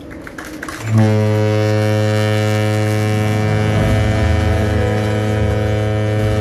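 A large ship's horn sounding one long, steady, deep blast that starts about a second in.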